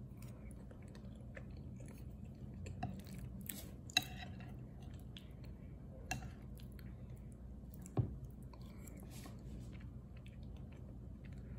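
A person quietly chewing a soft, mashed breakfast taken from a spoon, with a few sharp little clicks, the loudest about four and eight seconds in. A faint low steady hum lies underneath.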